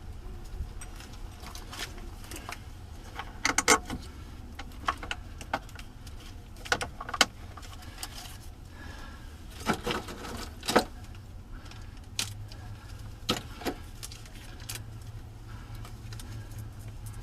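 Irregular metallic clinks and clicks of hand tools and hardware being handled, some in quick pairs, typical of work on battery cable connections.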